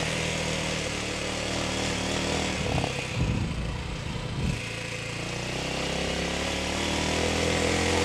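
TDR 300 dirt bike engine running under way on a rough trail. The engine note drops and a rough patch of knocks and thuds comes about three seconds in, then the revs climb again.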